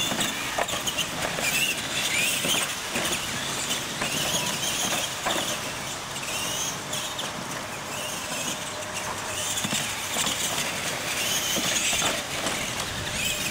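Radio-controlled monster trucks racing on dirt: their electric motors and gears whine, rising and falling in pitch with the throttle, over tyre noise, with a few knocks as they go over the ramps.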